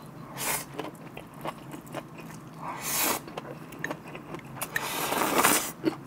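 Close-miked biting and chewing of a wild pine mushroom (songi), heard as several short noisy swells.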